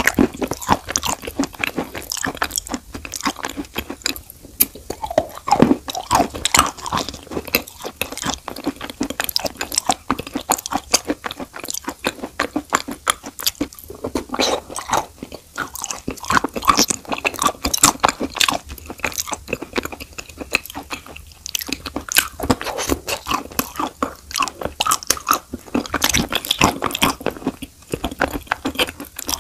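Close-miked biting and chewing of a long stick of chalk coated in wet Uzbek blue clay paste: a dense run of crisp, irregular crunches and snaps.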